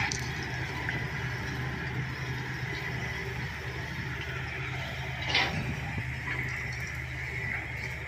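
Heavy diesel engines of a Sany excavator and an SD16 bulldozer running steadily while clearing brush, with a brief sharp crack about five seconds in.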